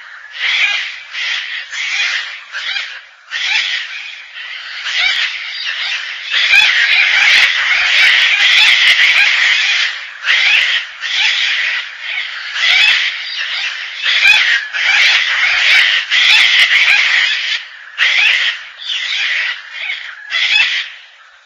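Gang-gang cockatoo calling: a string of harsh, rasping calls, mostly short with brief gaps, and one stretch of several seconds where they run together without a break.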